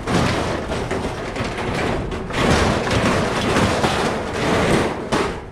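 Metal barbecue grill clattering and scraping as it is heaved and slid into the back of a pickup truck, with a steady run of knocks and rattles.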